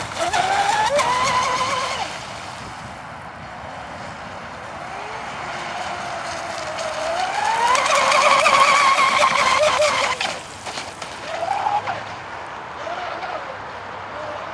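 Motor of a radio-controlled catamaran speedboat running flat out, a high whine that comes and goes as the boat passes: loud at first, fading, then rising in pitch to a loud stretch from about seven to ten seconds before dropping away suddenly, with two short blips near the end.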